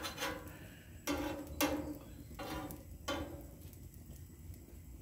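Steel spatula scraping across a flat-iron griddle plate as it is slid under pancakes to loosen them, with about five short scrapes in the first three seconds.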